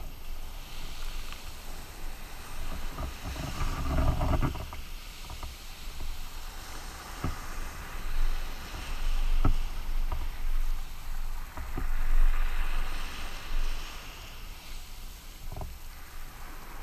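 Surf washing and splashing around a sea kayak, with low wind rumble on the microphone. A louder rush comes about four seconds in, and there are a few sharp knocks later on.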